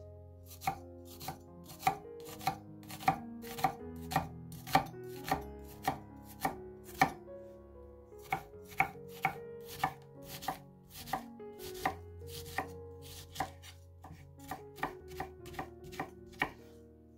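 Chef's knife dicing a white onion on an end-grain wooden cutting board: steady knife strokes through the onion onto the wood, a little under two a second, with a short pause about halfway, over soft background music.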